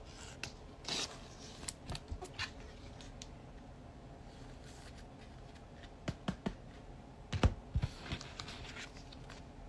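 Scattered light clicks, taps and scrapes of small objects being handled, with a few sharper knocks about seven and a half seconds in.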